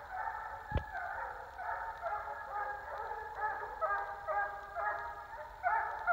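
A deer-running hound baying over and over on the track of a deer, a string of short pitched bawls about two a second. A single thump sounds about a second in.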